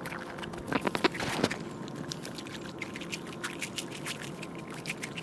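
A large dog chewing food: irregular wet crunches and clicks, with a louder run of crunching about a second in.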